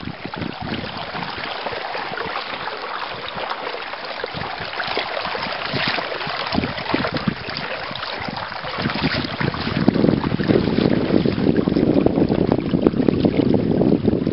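Wind buffeting the microphone and water washing past a small inflatable sailboat under sail, a steady rushing noise that grows louder about nine seconds in as the wind picks up.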